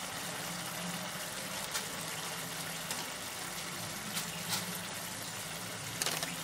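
Masala gravy bubbling in a kadai on a gas burner: a steady hiss with a few faint pops.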